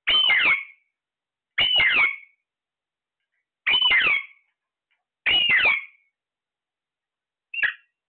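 Alexandrine parakeet calling: four alike loud calls under a second each, spaced one and a half to two seconds apart, then a shorter one near the end.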